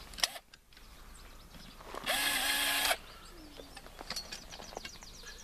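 Electric drill running in one short burst of just under a second, about two seconds in, with a steady motor whine over the noise of the bit boring into wood.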